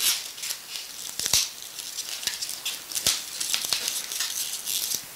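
Latex twisting balloons (a 5-inch tied to a 260) rubbing and crinkling in the hands as they are twisted into bubbles, with a few sharp taps.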